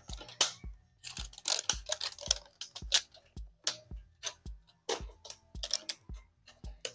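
Paper and tape shipping wrap crinkling and tearing in quick irregular crackles as it is pulled off a potted plant, over background music with a regular low beat.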